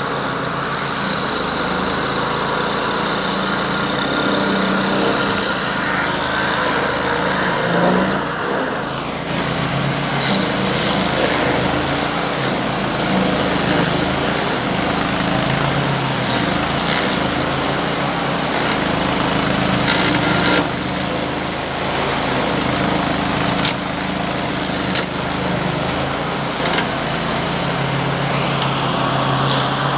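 Red Roo stump grinder's petrol engine running steadily under load while its cutting wheel grinds into a date palm stump and throws out chips. The engine's note slides down briefly about eight seconds in.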